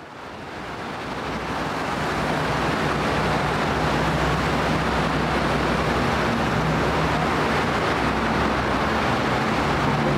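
Steady vehicle or traffic noise: a low, even hum under a constant hiss, fading in over the first two seconds and then holding steady.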